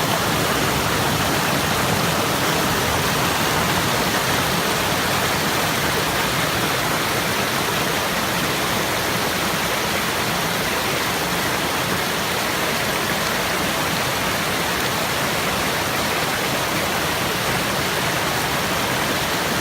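River water rushing steadily over rocks, an even, unbroken roar of running water.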